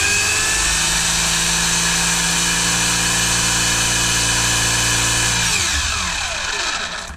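Stock brushless RC motor in a 1/10 buggy spinning the drivetrain and tires at full throttle on the bench, a steady multi-tone whine, with its mechanical timing set at 30 degrees. About five and a half seconds in, the throttle is released and the whine falls in pitch as the motor and wheels coast down to a stop.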